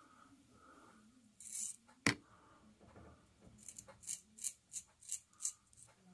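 Straight razor strokes shaving through lathered beard whiskers: a run of short, crisp scrapes at about three a second in the second half. Before them, a brief scrape and a single sharp click about two seconds in, the loudest sound.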